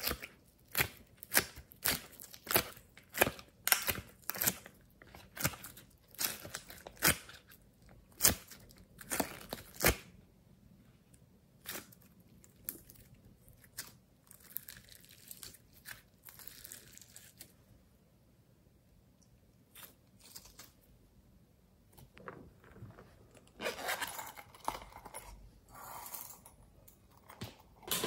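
Glossy slime being squished and stretched by hand, giving sharp sticky pops and crackles, about two a second at first. It turns sparser in the middle, then a denser crackling stretch comes near the end.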